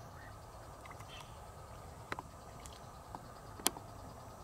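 Faint, steady night-time outdoor background with a few sharp clicks, the loudest about three and a half seconds in.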